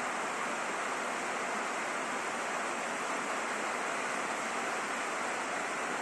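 Steady rain drumming on a roof, an even hiss with no separate drops or gusts standing out.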